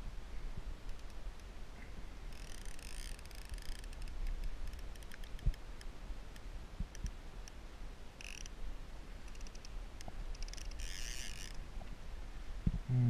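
Fishing reel whirring in three short bursts, about two seconds in, around eight seconds and near eleven seconds, as a hooked fish is played on a bent sea rod. A low rumble runs underneath, and a brief loud low sound comes right at the end.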